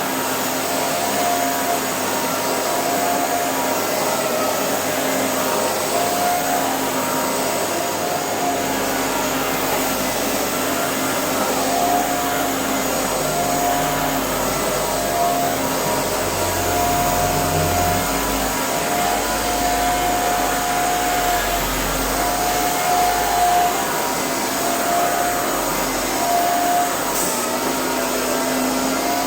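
Vacuum cleaner running steadily, with a higher whine breaking in and out every second or so.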